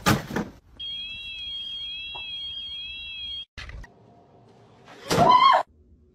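A thud as the robotic lawnmower is struck, then its electronic alarm sounding a steady high tone with a repeating warble for about three seconds. Near the end there is a short, loud pitched cry.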